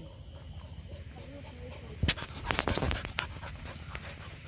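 Crickets or other insects chirring in one steady high tone. About two seconds in, a quick cluster of sharp crackles and knocks lasts about a second, much louder than the chirring: grass rustling or thumping close to the microphone.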